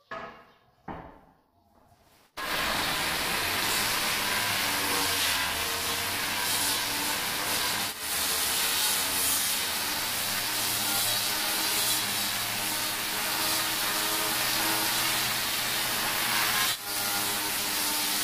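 Angle grinder with a red abrasive disc running against the edge of a granite countertop: a loud, steady grinding hiss with the motor's whine through it. It starts about two seconds in, after a couple of faint knocks, and dips briefly twice.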